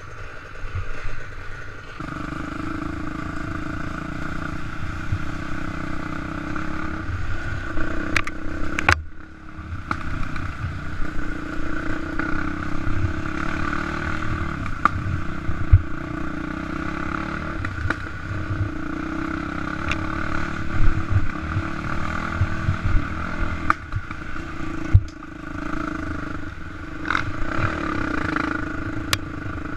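Quad bike engine running and revving as it is ridden along a bumpy dirt trail, with clattering knocks from the machine over the bumps. The engine eases off briefly about nine seconds in.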